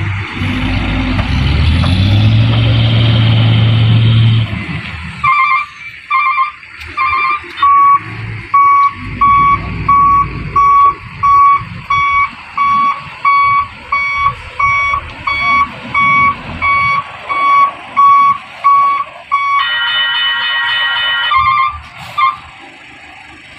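Sand truck's telolet horn: a deep horn blast for about four seconds, then a high horn beeping at one steady pitch about one and a half times a second. Near the end it sounds a brief chord of several tones and two last short beeps.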